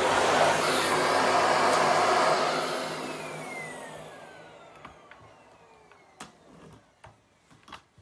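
Miele canister vacuum cleaner running, then switched off about two and a half seconds in: the motor winds down with a falling whine as the suction noise fades. A few light clicks and knocks follow near the end.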